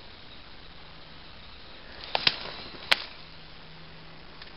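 Twigs snapping and branches brushing as someone pushes through woodland undergrowth: three sharp snaps close together a little after halfway.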